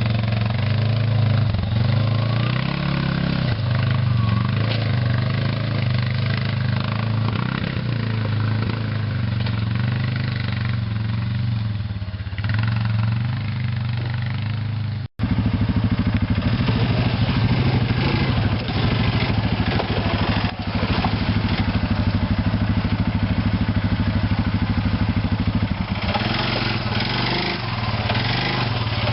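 ATV engine running at a steady idle, with an even low hum. The sound cuts out for an instant about halfway, then the engine carries on.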